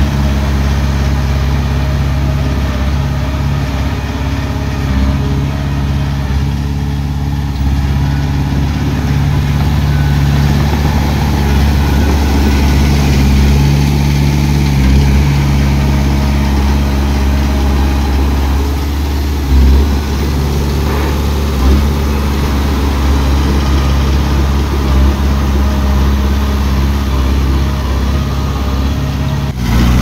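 Diesel engine of heavy earthmoving equipment running steadily, with a short knock about twenty seconds in.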